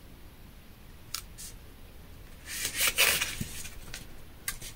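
Hands pressing and smoothing a kraft cardstock booklet onto double-sided tape: mostly quiet, with a couple of light paper ticks, then a brief rub of palm across card about halfway through.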